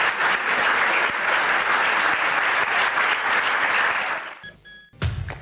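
Audience applauding steadily, fading away about four seconds in. Near the end a brief high tone sounds, then a low hum with clicking starts suddenly.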